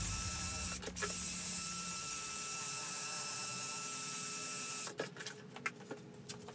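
Steady mechanical hissing noise with a faint steady whine in it, cutting off about five seconds in, followed by a few light clicks and taps.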